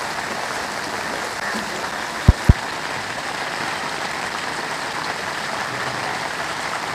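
Steady rain falling on standing floodwater and wet pavement, an even hiss. Two quick, loud low thumps a little past two seconds in.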